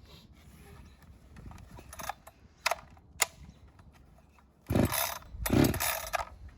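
Echo CS-620 chainsaw being pull-started: a few sharp clicks, then two hard pulls on the recoil starter rope that crank the engine without it starting, as the choke had been bumped out of position.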